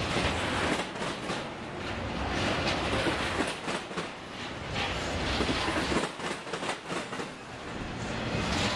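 Intermodal freight train's trailer-carrying flatcars rolling past, a steady rumble with steel wheels clacking irregularly on the track.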